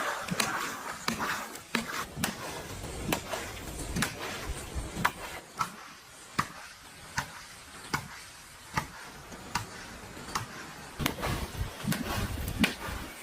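A series of sharp knocks or taps, roughly one to two a second and unevenly spaced, over a low background.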